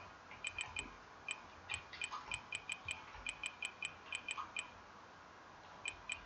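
Typing on a computer keyboard: a run of faint, quick key clicks, several a second, with a pause of about a second near the end.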